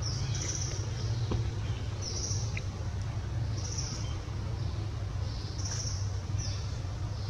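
Outdoor ambience: a steady low hum under short high chirps that come back every second or two.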